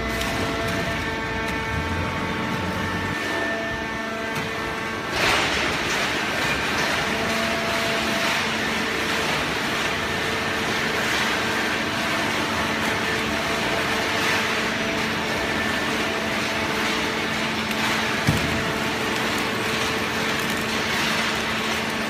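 Automatic horizontal hydraulic baler for waste cartons running: the steady hum of its hydraulic drive, joined about five seconds in by a louder rushing noise that carries on, with a single sharp knock late on.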